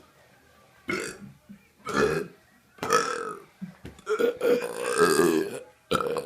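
A man burping repeatedly: three short burps about a second apart, then a long drawn-out burp, and another starting near the end.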